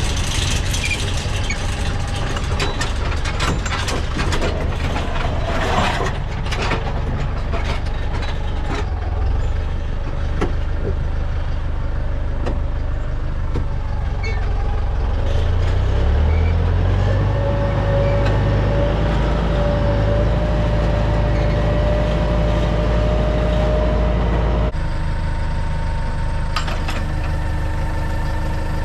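Farm tractor engine running under way, with rattling and clanking over the drone in the first part. The engine note rises about halfway through, and the sound changes abruptly near the end.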